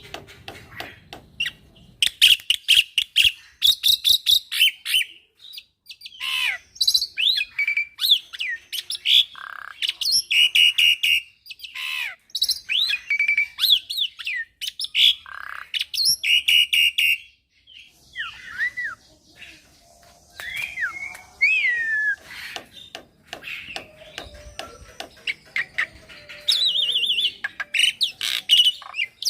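A young black-winged myna (jalak putih) singing a long, varied song: quick runs of rapidly repeated notes, whistled glides rising and falling, and scattered clicks. There is a brief pause about two-thirds of the way through.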